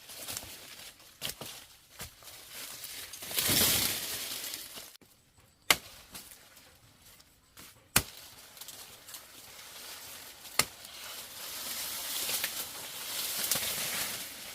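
Several separate sharp chopping or snapping strikes on plant stalks, the two loudest a few seconds apart in the middle, amid bouts of rustling and swishing leaves and stems during harvesting.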